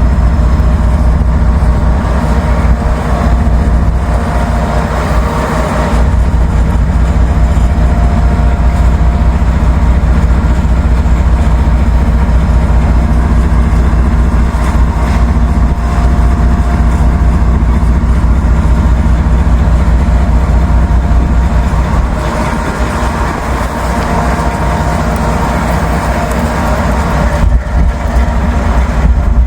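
Norfolk Southern diesel-electric locomotive engine running steadily during switching moves, with wind on the microphone adding a heavy low rumble.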